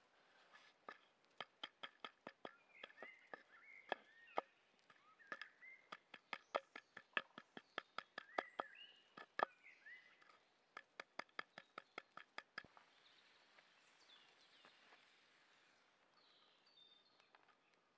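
A knife chopping walnuts in a wooden tray: quick, sharp knocks, about three to four a second, that stop about two-thirds of the way through. Small birds chirp between the knocks and after them.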